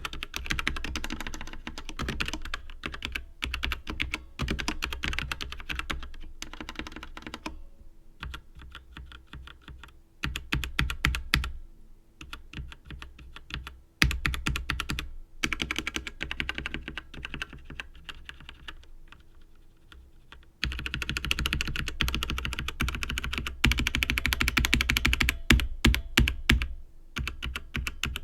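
Continuous typing on a Tecware Phantom mechanical keyboard: a rapid stream of key clicks. The typing eases into lighter stretches about a third and two thirds of the way in, and turns louder and denser near the end.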